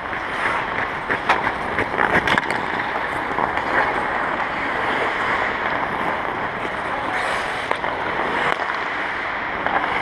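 Ice hockey skates scraping and carving on rink ice, a steady hiss, with a cluster of sharp clacks of sticks and pucks between about one and two and a half seconds in and a few fainter ones later.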